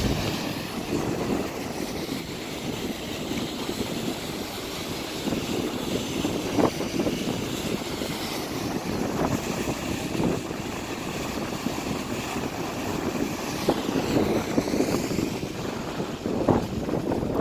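Niagara Falls rushing steadily, a continuous even noise of falling water, with a few faint knocks.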